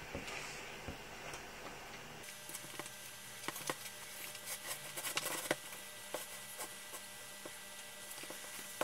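Wooden spoon stirring thick cake batter in a plastic mixing bowl: irregular soft taps and scrapes of the spoon against the bowl's sides.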